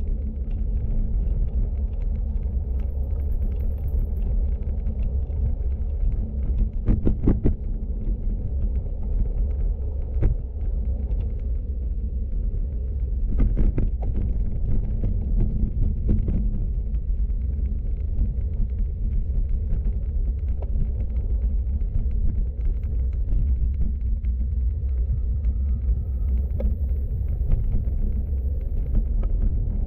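Road bike riding on rough asphalt, heard through a handlebar-mounted camera: a steady low rumble of tyres and road vibration, with a few short knocks and rattles from bumps in the road.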